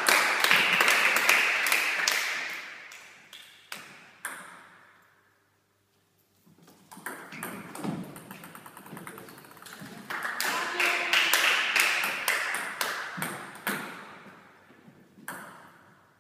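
Table tennis ball clicking off the bats and the table in rallies, with pauses between points. A loud rushing noise swells and fades twice, near the start and again from about ten seconds in.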